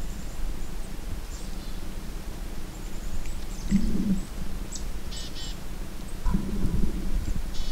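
Small songbirds calling: scattered high chirps and a few short rapid trills, over a steady low hum, with low rumbling about four seconds in and again around six and a half seconds.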